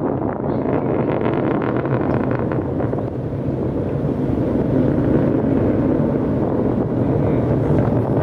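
Starship SN11's Raptor rocket engines rumbling steadily during ascent, heard as distant low noise mixed with wind buffeting an unshielded phone microphone.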